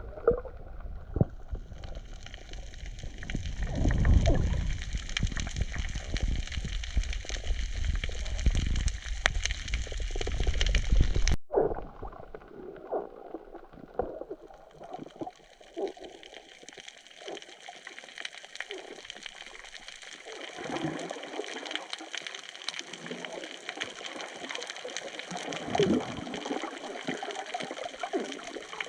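Water sloshing and gurgling around the camera in the sea, muffled, with a faint steady hiss. About eleven seconds in the sound cuts off abruptly, and after that it carries on quieter, without the low rumble.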